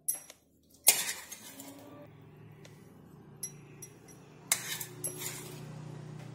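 A metal spoon clinking against a steel pan and a glass bowl as syrup-soaked gulab jamun are served out: a few sharp clinks, the loudest about a second in and two more near the five-second mark, over a faint steady low hum.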